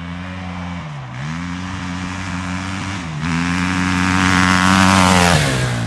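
KTM 450 quad's single-cylinder four-stroke engine pulling hard under acceleration, its pitch dipping and climbing again twice as it shifts up a gear. It grows louder as the quad nears, then the throttle is let off near the end.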